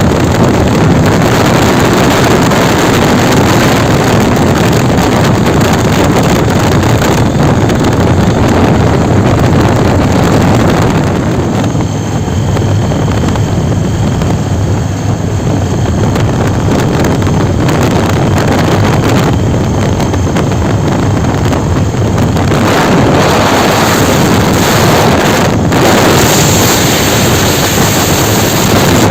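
Motorcycle riding at speed: loud, steady wind noise on the microphone, with the engine and road noise underneath.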